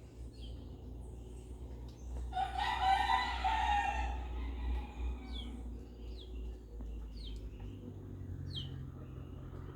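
A rooster crowing once, a single crow of about two seconds starting about two seconds in. Then a small bird gives several short, falling chirps, over a steady low hum.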